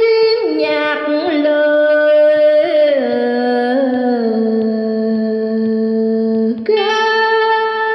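A woman singing a Vietnamese folk song (lý) over a backing track. She holds long notes that step down in pitch over several seconds, then leaps back up near the end.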